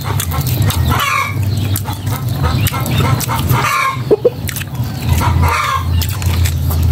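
Chickens clucking in short bouts, every couple of seconds, over a steady low hum.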